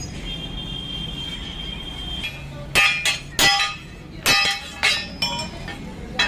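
Hammer striking a steel angle iron held in a cast-iron bending block: about six sharp, ringing metallic clanks in the second half, irregularly spaced, after a couple of seconds of steady background hum.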